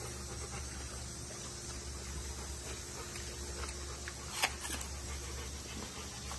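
Chimpanzee biting and chewing a red apple, with a sharp crunch of a bite about four and a half seconds in, over a steady low hum.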